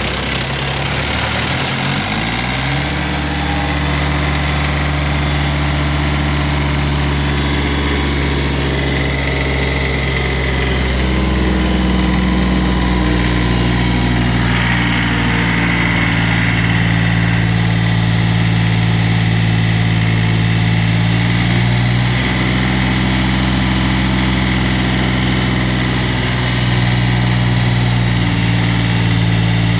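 Small diesel engine of a Bolens DGT-1700 garden tractor idling steadily, still cold after a start in freezing weather. Its speed changes about two seconds in and shifts slightly again around eleven seconds in.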